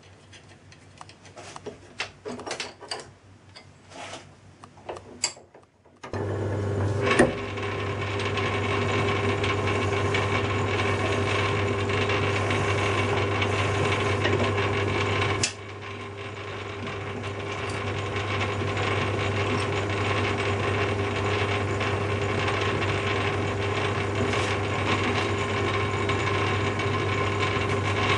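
Metal clicks and knocks of a spanner and clamp being tightened on a lathe faceplate. About six seconds in, the metal lathe starts and runs steadily with a low hum and a whine, turning the off-centre flywheel while a tailstock drill bores into it. The sound dips suddenly about halfway through, then builds back up.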